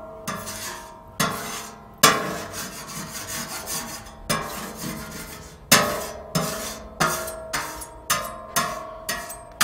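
A metal spatula scraping and clanking across the steel plate of a Yoder flattop griddle, pushing bacon grease toward the grease trap. The plate rings briefly after each stroke. The strikes come irregularly at first, then quicker, about two a second, in the second half.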